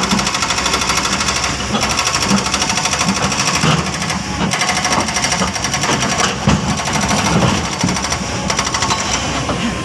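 Kobelco excavator working at high load, its diesel engine and hydraulics running with a fast, even clatter and a few louder knocks.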